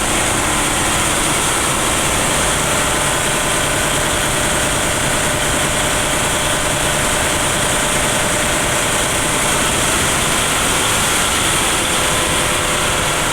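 Ship's engine-room machinery running steadily: a loud, constant din of diesel engines with many steady tones.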